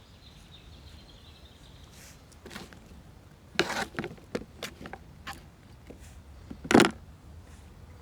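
A cluster of sharp clicks and knocks, then one loud thump near the end.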